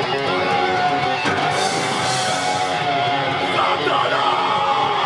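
Thrash metal band playing live, with loud distorted electric guitars over a dense full-band sound.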